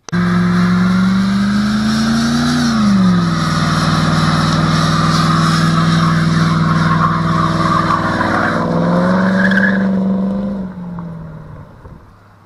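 Car doing a burnout: the engine held at high revs while the tyres spin and squeal on concrete. The revs ease up, drop sharply about three seconds in, hold, then climb again near the end before the sound dies away.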